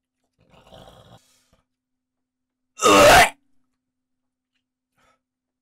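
A man's single short, loud groan-like vocal outburst about three seconds in, a reaction to a mouthful of canned mackerel in korma sauce, after a few faint mouth noises about a second in.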